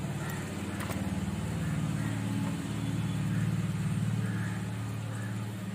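An engine running steadily at idle: a low, even, finely pulsing hum.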